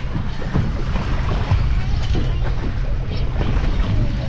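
Wind buffeting the microphone over a choppy sea, a steady low rumble, with irregular splashes of waves against the boat.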